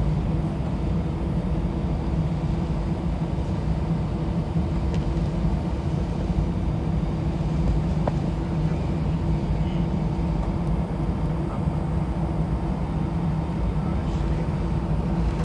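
Cabin noise of an Airbus A319 taxiing: the steady hum of its CFM56 engines at idle over a continuous low rumble.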